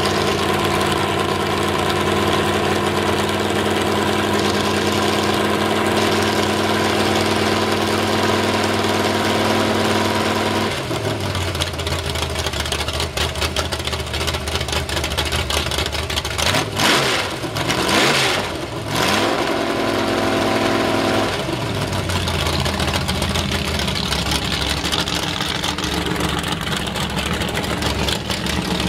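Chevy V8 mud truck engine running through open headers: a steady idle, then revved hard a few times about halfway through, rising and falling in pitch, before settling back to idle.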